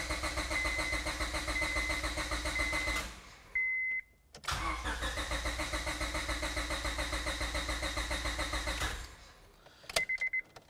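Honda Civic's starter cranking the engine in two attempts, a short pause between them, with a fast even pulse and no catch: the fuel pump relay is pulled, so the engine gets no fuel and will not start. A few short electronic beeps sound near the end.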